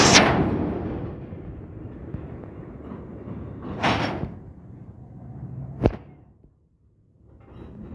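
Freight train passing, with loud banging knocks: one at the start that dies away over about a second, another about four seconds in, and a sharp click near six seconds. The sound then drops out briefly before the train noise returns.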